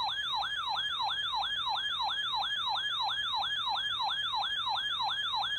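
Electronic alert alarm: a siren-like tone that falls in pitch over and over, about four sweeps a second, at a steady level.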